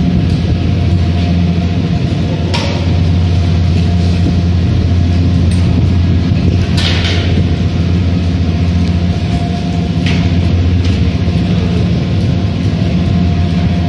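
Poma gondola station machinery running as cabins travel along the overhead rails and tyre conveyors: a steady low rumble with a constant hum. Three brief louder rattles come a few seconds apart.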